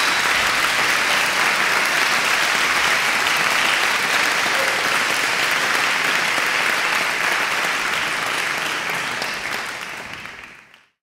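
Audience applauding steadily, fading out over the last few seconds and cutting off just before the end.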